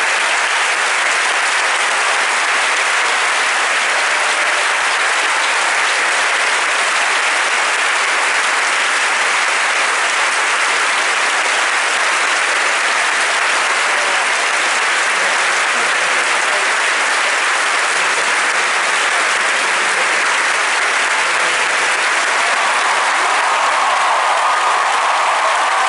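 A large audience applauding steadily, a dense, even wash of clapping.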